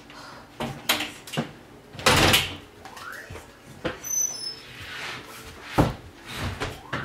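Irregular knocks, clatter and a scrape from hand work on a wooden door and its deadbolt hardware, with a couple of short squeaks.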